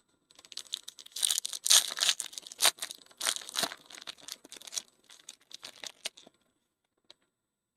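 A foil trading-card pack wrapper being torn open and crinkled: a dense crackling rustle for about six seconds, loudest in the first half, then a single small click near the end.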